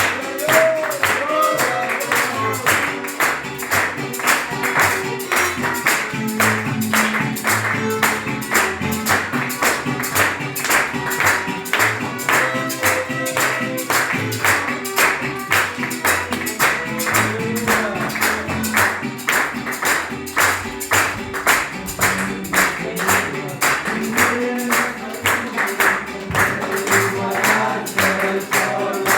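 Violins playing a Christian praise tune over a quick, steady rhythmic beat.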